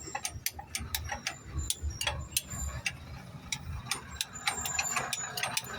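Irregular metallic clicks and taps with a few brief high rings: hand tools working on metal engine parts during a top overhaul.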